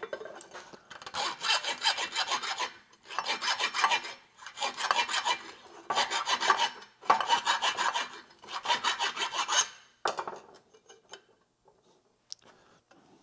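Round file rasping inside the end of a steel steering-column tube in quick back-and-forth strokes, in about six bursts of a second or two each, cleaning up the bore so a bearing will fit. The filing stops about ten seconds in, followed by a few faint clinks as the tube is handled.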